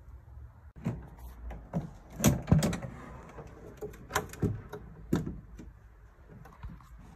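Hard plastic Honda motorcycle pannier being handled and its lid opened: a run of plastic knocks and clicks, loudest about two and a half seconds in.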